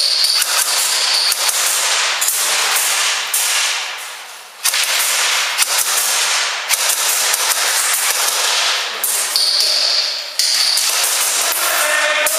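Airsoft rifle firing long full-auto bursts, a dense rattle of shots. It echoes off concrete walls and stops briefly about four and a half seconds in.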